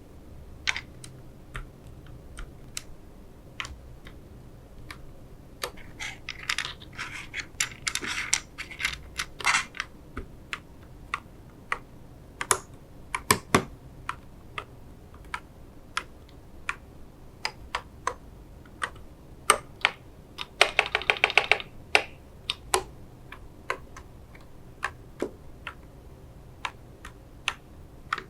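Typing on a mechanical keyboard fitted with KTT Mint linear switches: scattered single keystrokes, with a dense flurry of keystrokes about six seconds in and a short, fast, even run of presses about twenty seconds in.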